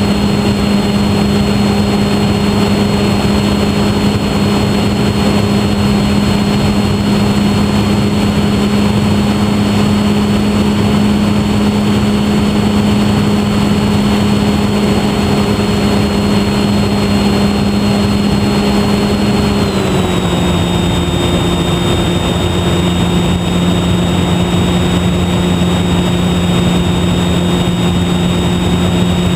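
Electric E-flite Park 480 motor and propeller of a HobbyZone Super Cub model plane running steadily in flight, heard from the plane's onboard camera with a constant rush of wind. The motor's hum drops slightly in pitch about two-thirds of the way through.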